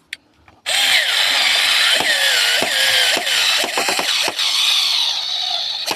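Power drill-driver driving a screw through the tie-wrap hinge into the hollow aluminium tube of the chair frame. It starts suddenly, and the motor's pitch wavers as the screw bites tight. A few sharp clicks come about three and a half to four and a half seconds in.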